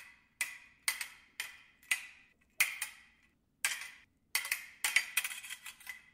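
Blades clashing in a sword fight, about a dozen sharp metallic clinks at uneven intervals, each with a short ringing tail, with a quick flurry of strikes near the end.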